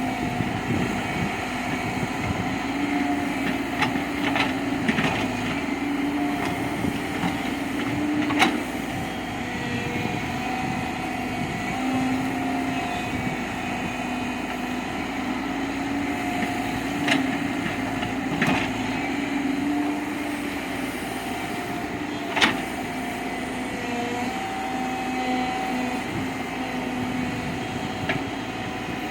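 JCB 3DX backhoe loader's diesel engine running steadily, its pitch rising and falling a little as it works. A few sharp knocks sound over it, the loudest about a third of the way in and again near three quarters through.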